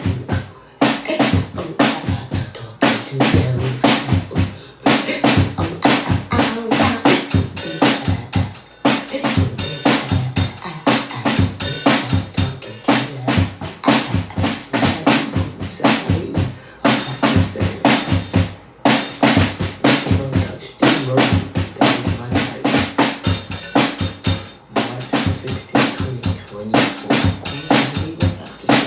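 A drum beat: kick, snare and rim hits played in a dense, steady pattern.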